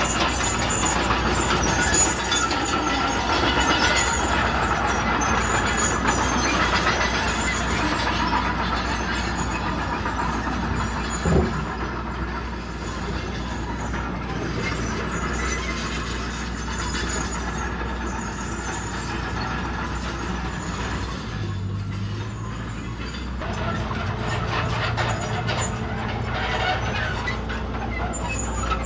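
Komatsu D31PX crawler bulldozer's diesel engine running steadily as the machine works, with a single sharp knock about eleven seconds in. The engine note shifts to a lower hum about two-thirds of the way through.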